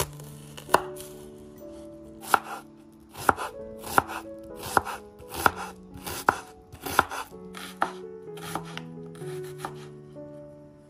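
Chef's knife slicing a red onion on a bamboo cutting board: a steady series of sharp knocks as the blade meets the board, a little faster than one a second, thinning out near the end.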